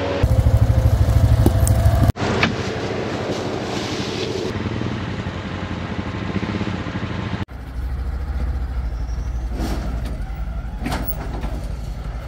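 Off-road vehicle engines running, in short clips joined by abrupt cuts about two and seven and a half seconds in. The first clip is the loudest, with a fast pulsing engine beat.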